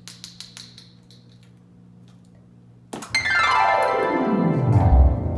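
A few light clicks, then about three seconds in a loud electronic keyboard sound effect that slides steadily down in pitch over about two seconds.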